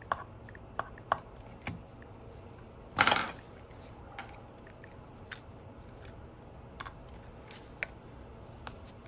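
Small repair tools clicking and tapping against an iPhone 11 as its screen is separated from the frame, with one short, harsher scrape about three seconds in.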